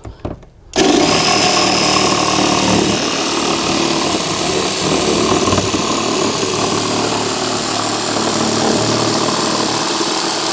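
Cordless jigsaw running steadily as it cuts through the kayak's plastic deck. It starts suddenly about a second in and does not let up.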